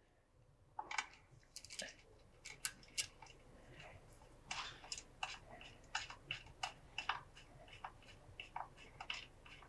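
Faint, irregular clicks and ticks of a 5 mm T-handle hex key turning a swingarm spool bolt as it threads into the swingarm, starting about a second in.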